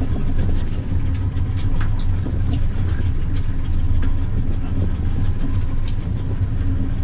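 A boat's engine running steadily with a low drone, with a few faint short clicks over it.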